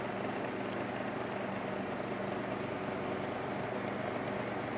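Steady background hum and hiss of the room, with no distinct events.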